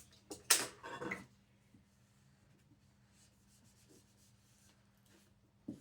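Self-adhesive vinyl film on a drawer front being handled and rubbed down, a short cluster of rustling and rubbing about half a second in, then faint scratching over a low steady hum and one more brief rub near the end.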